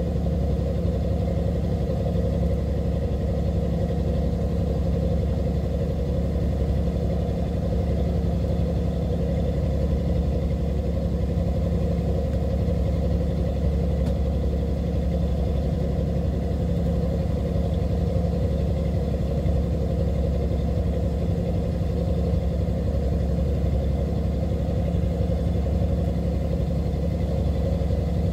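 Fishing boat's engine running steadily: a low, even drone that holds the same pitch and level throughout.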